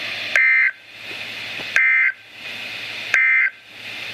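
NOAA Weather Radio broadcasting the EAS/SAME end-of-message code: three short buzzy two-tone digital data bursts, each about a third of a second long and about 1.4 seconds apart, with radio hiss between them. It marks the close of the Required Weekly Test message.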